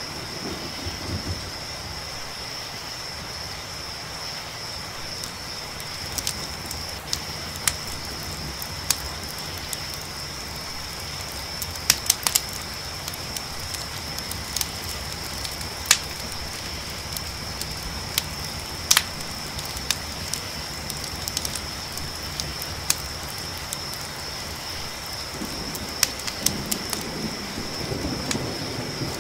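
Campfire crackling, with sharp pops scattered at irregular intervals, over a steady high-pitched chorus of crickets and a low rumble; the rumble swells near the end.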